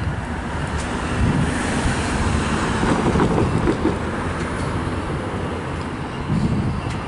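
Amtrak passenger train with its diesel locomotive running alongside the platform, a steady rumble, with wind gusting on the microphone.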